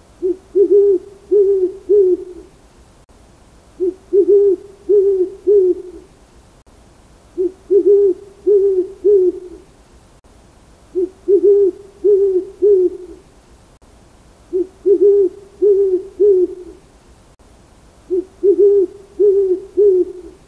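Owl hooting: six phrases of three or four low hoots each, repeated about every three and a half seconds.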